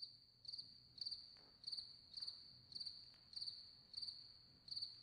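Faint cricket-like chirping: short, high-pitched pulsed chirps repeating evenly about twice a second.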